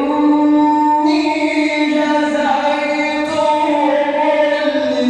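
A male Quran reciter chanting in the melodic tajweed style. One voice holds long drawn-out vowels, its pitch moving slowly from one held note to the next.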